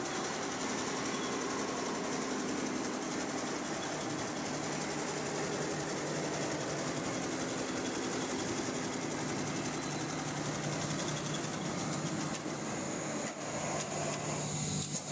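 Multi-head Barudan industrial embroidery machine stitching at speed: a steady, dense mechanical chatter of many needle heads working at once over a low hum. There is a brief dip about thirteen seconds in.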